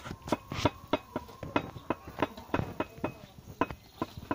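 Masonry tools on concrete blocks and mortar: quick, irregular sharp knocks and clinks, about four or five a second, as blocks are set and tapped into place.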